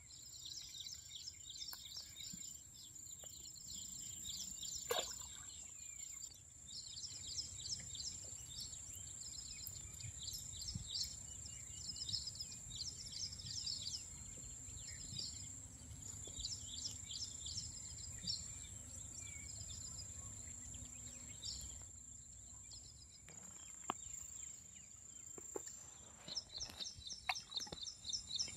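Outdoor ambience of birds chirping in repeated quick trills over a steady high-pitched insect drone, with a low rumble of wind.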